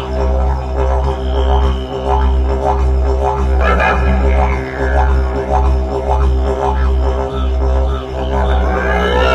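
Didgeridoo music: a deep, steady drone with a low pulse about once a second and overtones that sweep up and down.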